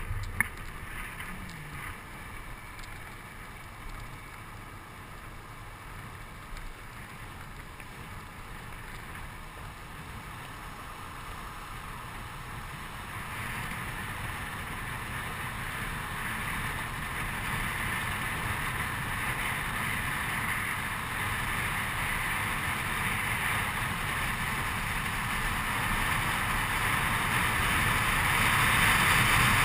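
Wind rushing over the microphone together with the rolling noise of longboard wheels on asphalt during a downhill run, growing steadily louder as speed builds.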